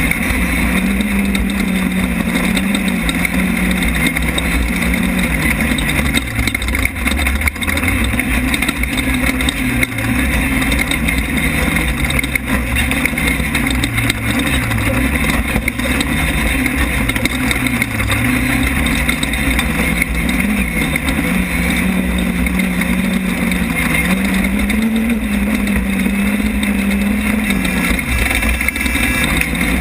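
Off-road race car engine running hard, picked up by an in-car camera over constant wind and drivetrain noise. Its pitch holds steady at first, then drops and climbs again and again through the middle as the throttle is lifted and reapplied. It holds steady once more before rising near the end.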